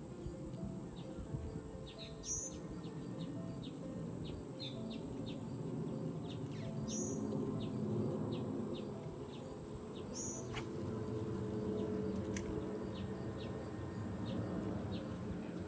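Outdoor birdsong: a bird repeats a short high call every two to three seconds, with quick high chips in between, over a steady low background noise.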